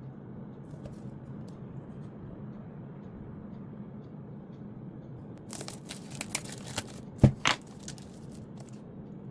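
Earphone packaging being handled and opened: a run of crinkling and tearing noises over about three seconds, with a sharp knock in the middle, over a low steady hum.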